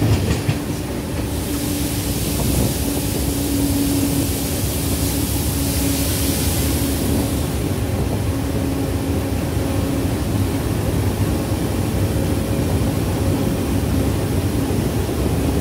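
Diesel train running steadily, heard from inside the driver's cab: a constant engine hum over a low rumble. About a second and a half in, a hiss sets in and lasts some six seconds.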